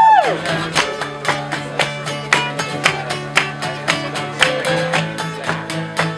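Two acoustic guitars strumming a steady rhythm, about four strums a second. At the very start a harmonica's long held note bends down and stops.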